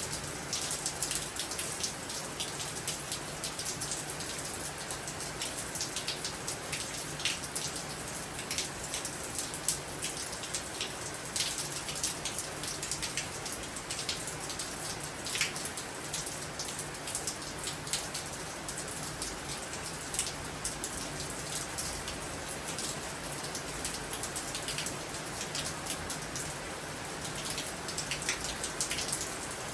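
Heavy rain falling steadily during a storm, with many sharp, irregular drop hits over a continuous wash of rain noise.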